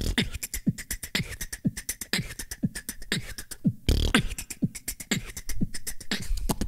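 Beatboxing: fast mouth percussion of sharp clicks and hissing, shaker-like hits over short deep kick sounds, with a brief break just before four seconds in that ends on a heavy kick.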